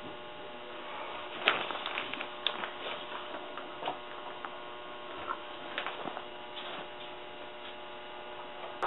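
Steady electrical hum under a scatter of small clicks and knocks, the loudest one about a second and a half in, as of objects being handled at a bathroom sink.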